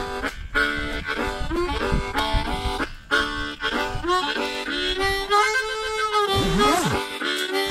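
Background music: a harmonica playing a bluesy tune, holding a long note about two-thirds of the way through and then bending it down and back up in pitch.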